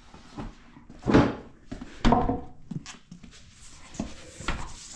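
A few thuds and clunks of objects being handled and set down. The loudest come about one and two seconds in, with smaller knocks near the end.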